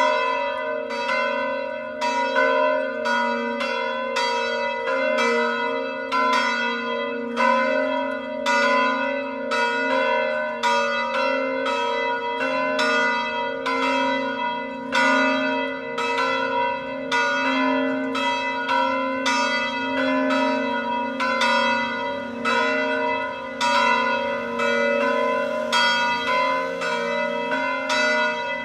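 Church bells pealing: several bells struck one after another in a quick, uneven run of about two strokes a second, each stroke ringing on over the lasting hum of the bells.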